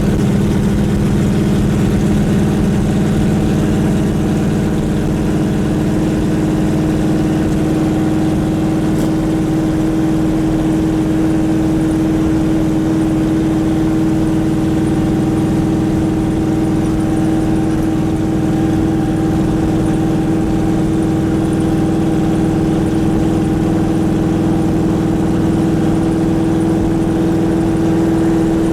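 1968 Dodge Dart driving along at a steady pace, its engine running with a constant drone, the main note moving slightly higher in pitch through the second half.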